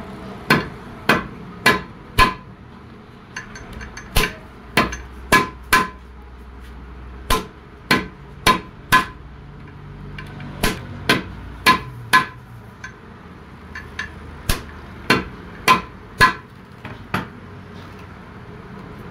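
Hand hammer striking rivets to fix new brake lining onto a tractor's steel brake band, which rests on a steel post. Sharp metallic blows with a short ring, about two a second, come in runs of four or five with brief pauses between them.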